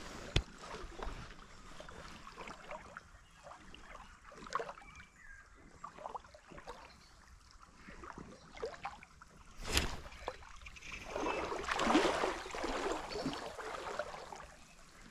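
Scattered clicks and rustles of handling and movement, with a sharp knock about ten seconds in, followed by a few seconds of louder, denser rustling.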